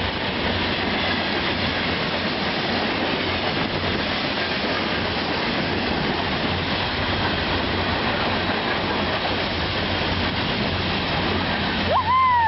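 Caltrain diesel commuter train passing close by: a steady rumble of wheels on the rails with clickety-clack over the rail joints. Near the end comes a short rising-and-falling whoop.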